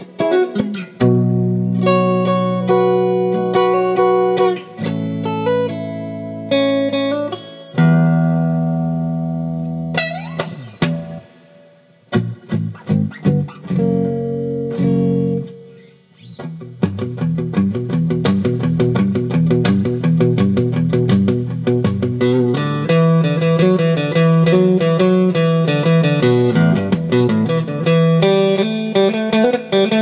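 1979 Hohner Thinline Telecaster electric guitar played clean through a Peavey Classic Chorus 212 amplifier with only reverb: several ringing, sustained chords in the first half, then a fast picked riff of quick notes from about halfway through.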